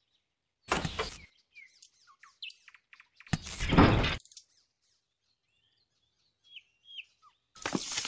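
Small crushed stones rattling and clinking as they are scooped and poured into and out of a small steel bowl, in three short bursts, the loudest near the middle. Birds chirp a few times in the quiet between.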